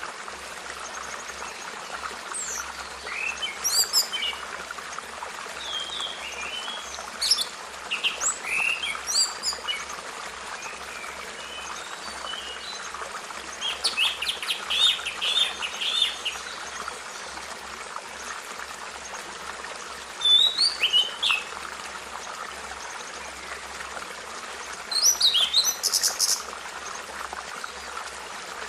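Birds chirping and singing in short calls and trills again and again, over a steady background hiss.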